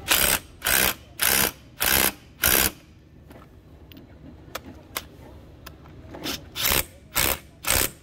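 Cordless impact wrench hammering on the rear clutch-bell nut of a Daelim Couple 50cc scooter's belt drive. It runs in five short bursts, then after a pause of about three seconds in three or four more bursts near the end.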